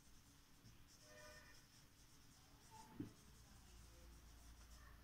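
Faint sound of a felt-tip marker writing on a whiteboard, with one short soft knock about three seconds in.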